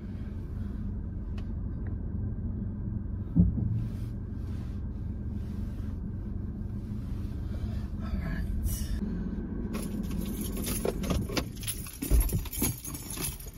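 Car cabin noise while driving: a steady low road and engine rumble, with one sharp thump about three seconds in and a few knocks and rattles near the end.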